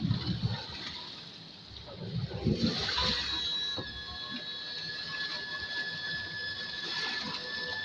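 Water rushing and churning past a rigid-inflatable boat's hull under way, joined from about three seconds in by the steady whine of its twin Suzuki outboard motors running at speed.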